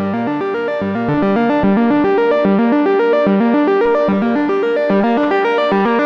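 Behringer MonoPoly analog synthesizer arpeggiating a simple three-note minor chord as a fast, even run of short repeating notes, with its arpeggiator in poly mode playing each note on a different oscillator. The sound gets louder about a second in.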